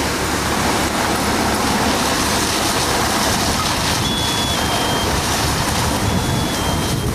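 Steady loud din of a fire engine running at a fire scene, with the rush of a hose stream spraying. Twice in the second half, a short high two-note electronic beep steps down in pitch.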